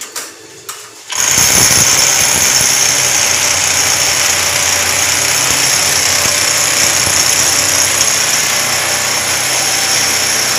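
Electric power drill running steadily as it bores a hole into the wall for an air-conditioner installation, starting about a second in after a few light clicks.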